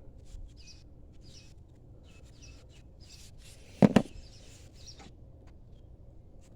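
Small birds chirping over and over in the background, with a sharp double click about four seconds in.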